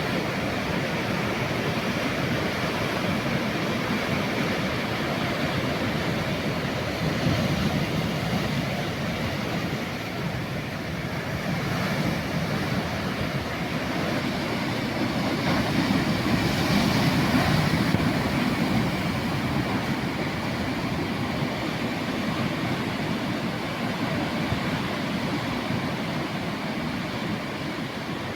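Sea waves washing in, a steady rush that swells louder about a quarter of the way in and again a little past the middle.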